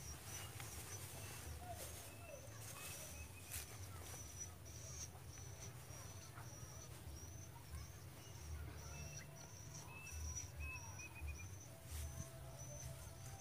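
Outdoor pond-side ambience: a small animal keeps repeating a short high chirp about twice a second, with a second, lower chirp joining now and then, over a faint low rumble.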